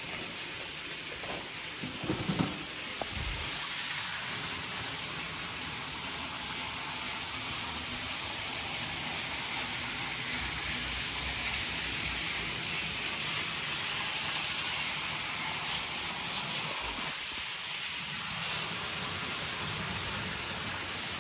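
Model train running on the track: a steady rushing hiss from the wheels and motor, with a few clicks about two seconds in.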